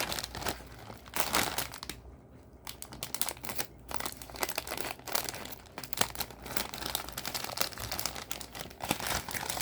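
Plastic wrapper of a Uni-President Science Noodles packet crinkling as it is opened by hand: a dense run of rustles and crackles with a brief lull about two seconds in.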